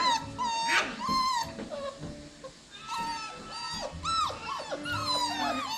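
Several seven-week-old Cockapoo puppies whining and yelping in short, high-pitched squeaks that rise and fall in pitch, with a short lull about two seconds in, then several calling over each other.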